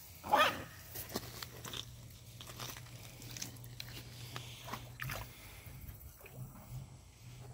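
A dog barks once, sharply, about a third of a second in, then wades through shallow stream water with small splashes of its paws.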